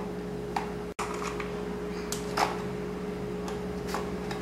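Faint scattered clicks and taps of hard, frozen chocolate pieces being picked from a bowl and pressed into batter in a paper panettone mould, over a steady electrical hum.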